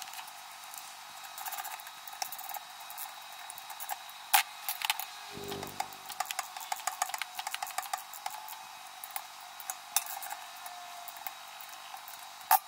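Steel sockets clinking in a plastic socket-set case, then a hand ratchet clicking as bolts are tightened on an electric motor's face-mount flange. The sound is a scatter of short, sharp metal clicks and clinks.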